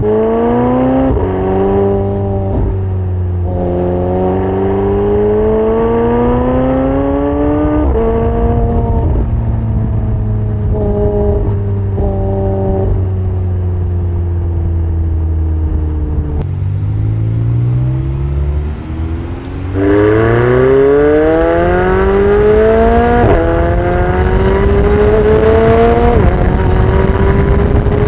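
McLaren 720S's twin-turbo 4.0-litre V8 accelerating through the gears, the engine note rising and dropping back at each upshift. About halfway it eases off and falls in pitch, then pulls hard again with several quick upshifts in the last third.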